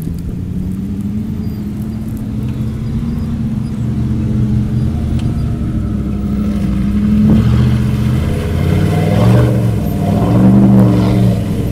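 SUV engine running and revving as the vehicle drives through a shallow muddy stream. The revs rise and fall and get louder in the second half. Water splashes from the tyres near the end.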